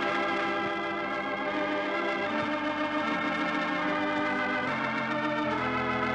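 Organ playing the program's closing music: held chords that move to new chords a few times.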